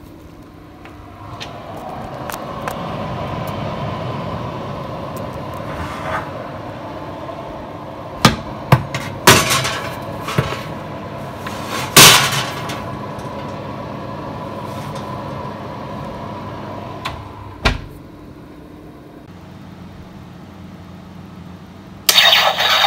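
A domestic oven is opened and hums steadily while a cotton tote bag is slid inside, with a run of knocks and clatter against the rack and door; the loudest knock comes about halfway through, and a thud follows as the door shuts. A few seconds before the end, a Death Star kitchen timer sets off a sudden loud electronic sound effect.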